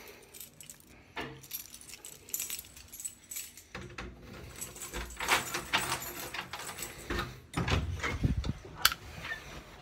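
A bunch of keys jangling as someone sorts through them for the right one at a door lock, with a few thuds and a sharp click near the end.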